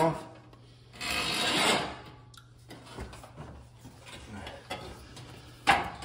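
Refrigerator's rear vent panel being pulled off, scraping and rubbing for about a second, then light handling ticks, and a sharp knock near the end.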